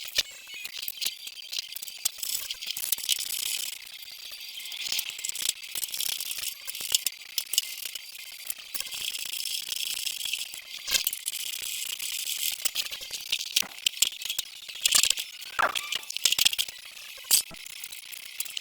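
Hand tools and loose metal car-body parts rattling and clinking in an irregular stream of sharp clicks, with a short falling squeak near the end.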